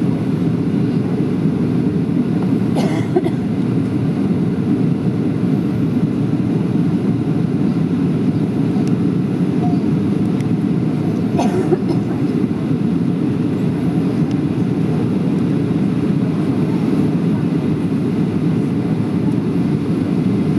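Steady cabin drone of a Boeing 737-700 on final descent, engine and airflow noise heard from a window seat, with two faint clicks, one about three seconds in and another about eleven seconds in.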